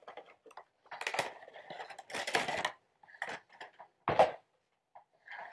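Funko Pop vinyl figure being taken out of its cardboard box and plastic insert: irregular rustling and scraping of the packaging, with one sharp knock a little after four seconds.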